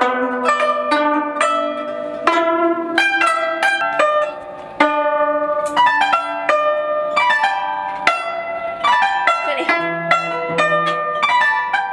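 Guzheng (Chinese zither) being plucked: a steady stream of single ringing notes and short phrases, with a few notes bent and wavered in pitch after about nine seconds.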